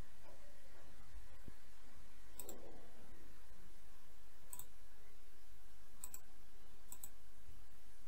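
A computer mouse clicking four times, a second or two apart, some clicks doubled as press and release, over a faint low hum.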